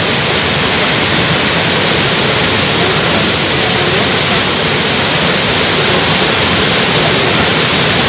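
Waterfall plunging into a churning pool: a loud, steady rush of falling water.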